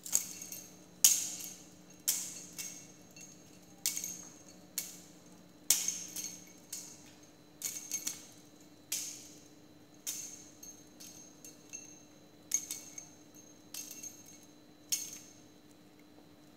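Sharp clinking strikes of a hard object, irregular at about one a second, each with a short metallic ring at the same pitch.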